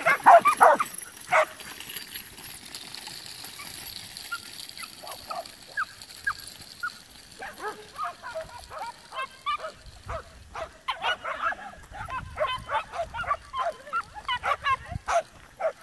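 Dogs barking and yipping: a few loud barks in the first second and a half, a quieter stretch, then a run of rapid short yaps and yips through the second half.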